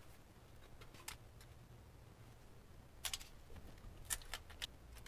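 A few faint clicks and taps of gloved hands working the transmission's wiring-harness connectors: one about a second in, then a small cluster about three seconds in and a few more around four seconds, over a faint low hum.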